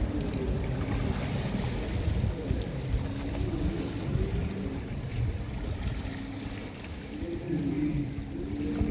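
Wind buffeting the microphone over surf on the shore, a fluctuating low rumble. A faint wavering hum runs underneath and settles into one steady tone near the end.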